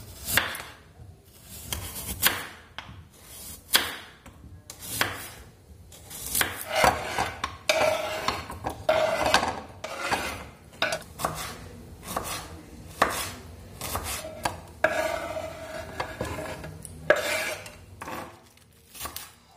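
Kitchen knife slicing a radish and chopping spring onion on a wooden cutting board: irregular knocks of the blade on the board, with a few stretches of scraping.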